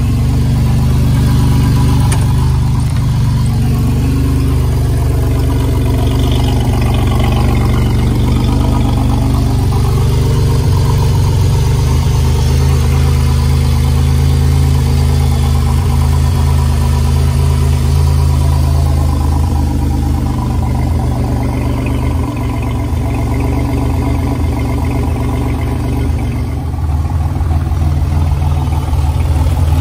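Supercharged GM 3800 Series II (L67) 3.8-litre V6, fitted with an Eaton M90 supercharger, idling steadily with its balance shaft removed.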